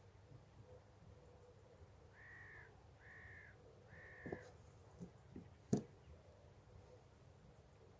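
A crow cawing three times, each call about half a second long and a second apart, followed by a few sharp knocks close by, the last one the loudest.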